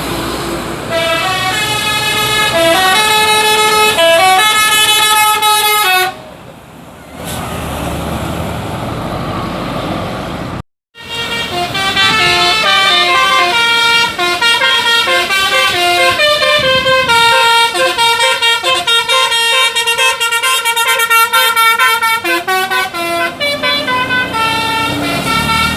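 Multi-tone telolet horns on a bus and a truck, with a Basuri horn on the bus, playing melodies note by note. The first tune stops about six seconds in. After a brief dropout near eleven seconds, a longer, faster tune runs until shortly before the end.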